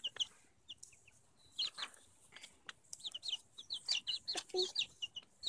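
Young chicks, about two to three weeks old, peeping: short high cheeps, scattered at first, then a quick run of them in the second half.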